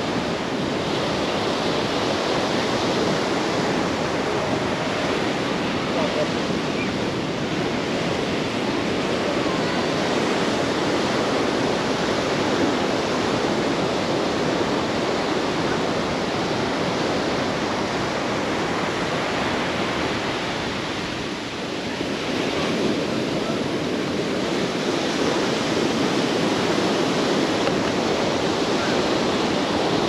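Ocean surf washing onto a sandy beach: a steady, loud rush of breaking waves that eases briefly about two-thirds of the way through.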